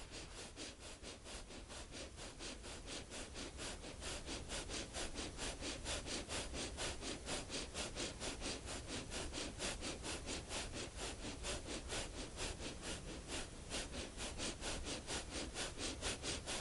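Breath of fire (kapalabhati): rapid, forceful sniffing breaths through the nose in an even rhythm of several a second, close on a clip-on microphone, getting a little louder toward the end.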